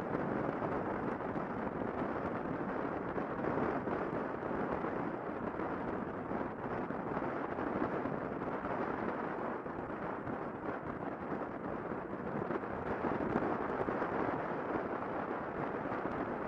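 Wind rushing over the camera microphone of a motorcycle at motorway speed, mixed with road noise: a steady, even rushing with no clear engine note.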